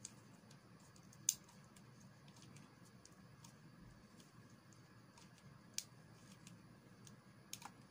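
Hand crimping tool squeezing an RJ45 pass-through plug onto Cat6 cable: one sharp click about a second in, then a couple of fainter clicks near the end, over near silence.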